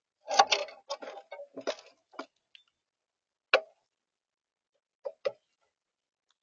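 Common grackles giving short, harsh chack calls: a quick cluster of them in the first two seconds, a single loud call about halfway, and two close together later on.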